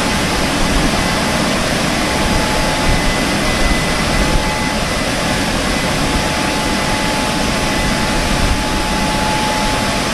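Car wash air dryer blowers running: a loud, steady rush of blown air with a faint high whine over it.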